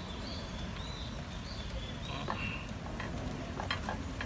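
A wooden spoon scraping and knocking against a pot as a stiff mass of ugali is worked out onto a plate, with a few sharp knocks near the end, over a steady low rumble.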